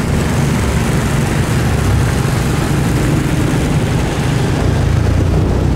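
Motorcycle engine running steadily on the move, under a steady rush of wind and road noise.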